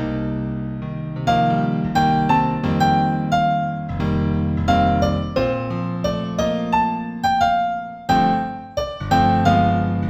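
Slow new-age piano piece in B minor: a melody of single struck notes over held low notes. The playing thins out and dips in loudness about eight seconds in, then the notes resume a second later.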